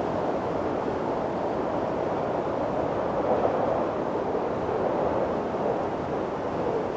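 Wind blowing steadily: a continuous rushing that swells and eases gently.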